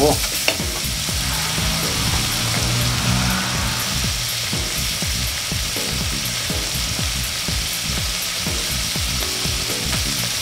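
Diced vegetables sizzling steadily in a stainless steel pot, with a few knocks of a wooden spatula against the pot as they are stirred at the start.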